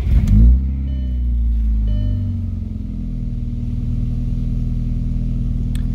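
A VW Mk4 Jetta's turbocharged 1.8T four-cylinder starts, with a catless 3-inch downpipe and exhaust. Its revs flare up for about a second, then it settles into a steady idle around 1,000 RPM, heard from inside the cabin. This is the first start on a freshly installed Stage 2 ECU tune, and it idles fine.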